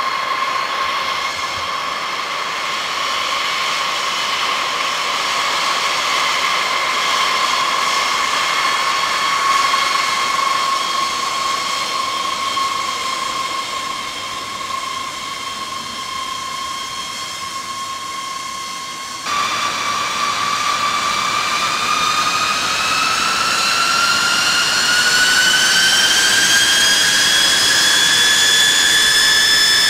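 Jet engines of a taxiing B-52H Stratofortress, eight Pratt & Whitney TF33 turbofans, giving a loud, steady high whine with several tones. About two-thirds of the way through the sound changes abruptly, and the whine then climbs steadily in pitch.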